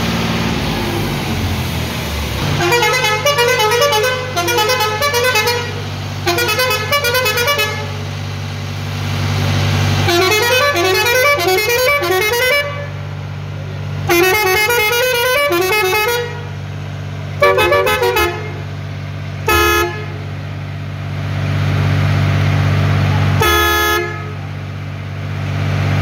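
Multi-tone musical air horn fitted to a tractor, playing quick stepping note-sequence tunes in several phrases of one to three seconds, then a few short blasts near the end. Under it the tractor's engine idles steadily.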